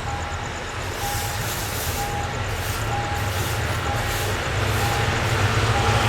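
A short electronic warning beep repeating about once a second over a steady low rumble of a diesel-hauled train that grows louder as it approaches.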